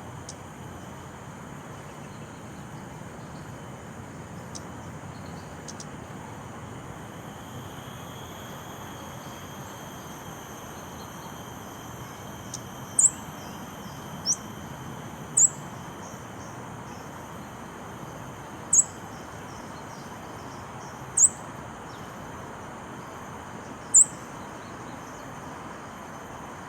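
Scarlet-backed flowerpecker giving single sharp, high-pitched call notes, about six of them spaced one to three seconds apart in the second half, over a steady thin drone of insects.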